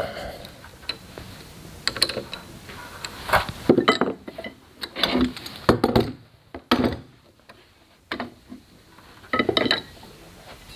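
Scattered metallic clinks and knocks of woodturning tools and lathe chuck parts being handled, with quiet gaps between and no motor running.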